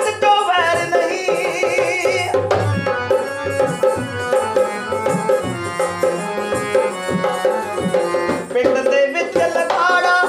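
Mandolin played with quick plucked picking, accompanying a man singing a Punjabi song. The voice drops out after about two seconds, leaving the mandolin playing alone for several seconds, and comes back near the end.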